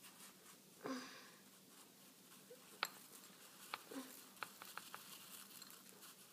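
Stone mortar tapping and clicking against the rim of a ceramic bowl as crushed pretzel pieces are tipped and knocked out into it: about half a dozen sharp, light clicks, mostly in the second half.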